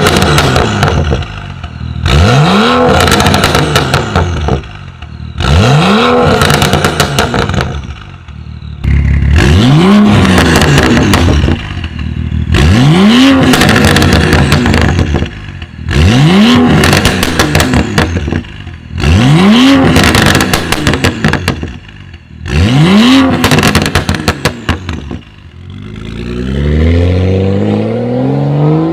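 BMW 535i F10's turbocharged 3.0-litre inline-six through a catless Fi valvetronic exhaust with the valves open, blipped about eight times at standstill. Each rev falls away into a spray of crackles and pops. Near the end the car pulls away under acceleration, the engine note climbing steadily.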